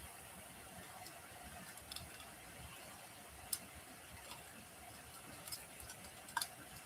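Wood fire crackling in a fireplace: scattered sharp pops over a faint steady hiss, the loudest pair near the end.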